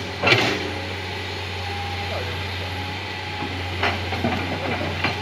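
Crawler excavator's diesel engine running steadily, with a few short, sharp knocks: one just after the start, one about four seconds in and one near the end.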